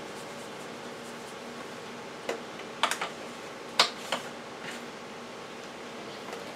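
A few light, sharp clicks and taps, irregularly spaced over a couple of seconds, from plastic seasoning shakers being handled, opened and set down on the kitchen counter. A steady low hum runs underneath.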